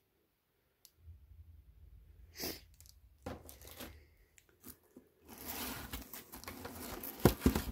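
Plastic bags and crinkled kraft-paper packing rustling and crackling as a hand handles graded comic slabs in a cardboard shipping box. A few faint clicks and knocks at first, then steadier, louder rustling from about five seconds in.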